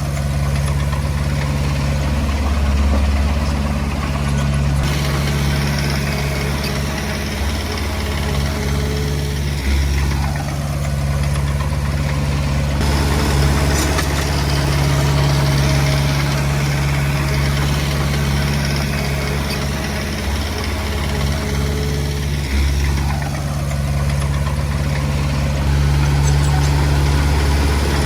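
Diesel engine of a Komatsu D20P bulldozer running steadily, its low note shifting a little around a third of the way in and again near two-thirds.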